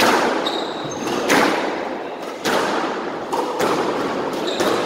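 Squash rally: racket strikes and the ball cracking off the court walls about once a second, each hit ringing in the enclosed court's echo. Short sneaker squeaks on the hardwood floor come in between.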